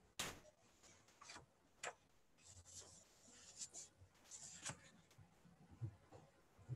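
Near silence: room tone with a sharp click just after the start and a few faint clicks and rustles.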